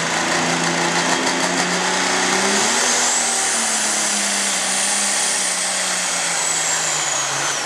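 International Harvester super stock pulling tractor's turbocharged diesel running hard under full load. A high turbo whistle climbs about two and a half seconds in, holds, and falls away near the end. The engine note rises and then slowly sags as the pull goes on.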